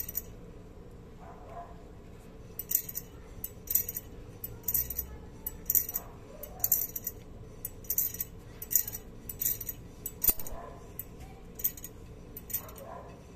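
Brake caliper spring catching and rubbing as the wheel turns, giving short, very high-pitched metallic chinks and scrapes about once or twice a second: a small brake spring snagging, the source of the car's strident metallic noise.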